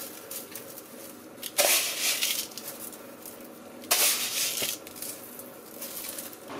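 Coarse salt poured and scattered by hand over raw duck pieces in a stainless steel tray, salting them down for curing. It comes as two louder pours, each under a second, about one and a half and four seconds in, with softer sprinkling between.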